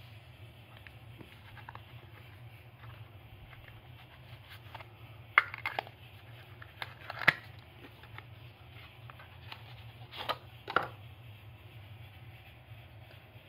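A small paperboard ink box being handled and opened by hand, with quiet rubbing and a few sharp clicks and scrapes as the flap comes open and the glass ink bottle is taken out: a cluster about five to seven seconds in, and two more a little after ten seconds.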